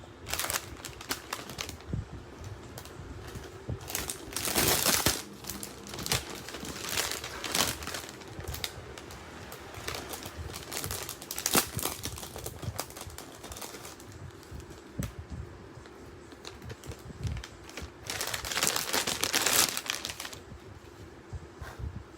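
Packaging being handled and unwrapped, with irregular crinkling and rustling and small clicks. There are two longer bouts of rustling, about four seconds in and again near the end.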